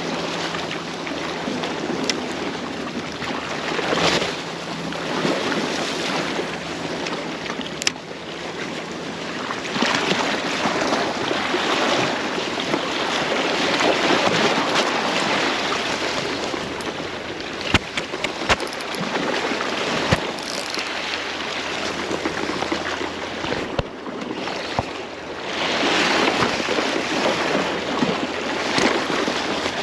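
Sea surf washing and surging against a rocky shore, swelling and ebbing every few seconds, with wind buffeting the microphone. A few sharp clicks come about eighteen seconds in.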